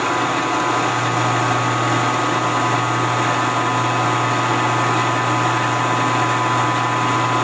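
Milling machine running steadily with its spindle turning free above the work, not cutting: an even hum with a constant high whine.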